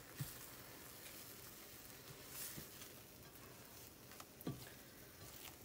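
Scrambled eggs cooking in a skillet over lowered heat with a faint sizzle, as a rubber spatula pushes and folds them, with a few soft knocks of the spatula against the pan, the clearest near the end.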